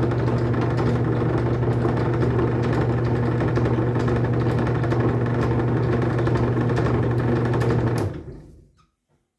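Drill press motor running steadily with a router bit in the chuck, then switched off about eight seconds in and spinning down to silence within a second.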